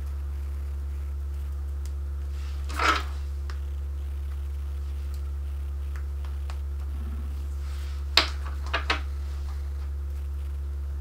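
Handling noises from a plastic Barbie doll being adjusted by hand: a short scuff about three seconds in, then three small sharp clicks around eight to nine seconds in. A steady low hum runs underneath.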